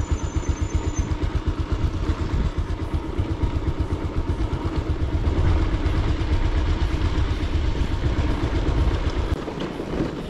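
A motor vehicle's engine running on the move, a low, evenly pulsing rumble under road and wind noise. The low rumble fades near the end.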